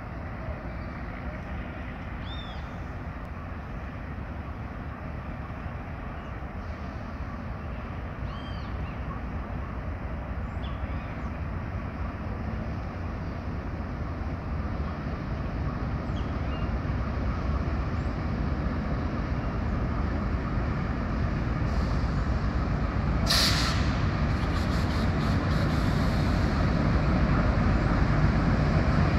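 Diesel locomotive and its train approaching slowly, the engine noise growing steadily louder as it nears. About three-quarters of the way through, a short burst of air hissing.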